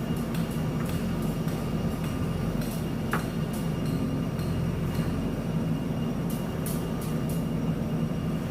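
JCB backhoe loader's diesel engine running steadily under work, with scattered clicks and knocks and one brief squeak about three seconds in.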